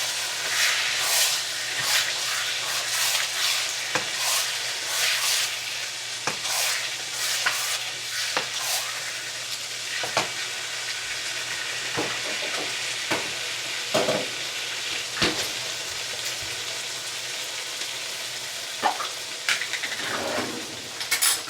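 Mustard-marinated onions sizzling as they fry in oil in a pot, stirred with a utensil: repeated scraping strokes, about two a second, in the first half, then scattered knocks against the pot.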